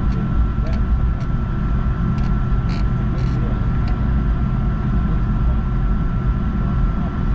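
Boeing 757-200 cabin noise: a steady, heavy rumble of the engines and airflow heard from inside the cabin, with a thin steady whine above it and a few faint ticks.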